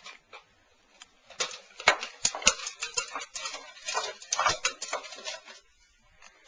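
A quick, uneven run of knocks and clicks lasting about four seconds, starting about a second and a half in, with a few heavier thumps in the middle.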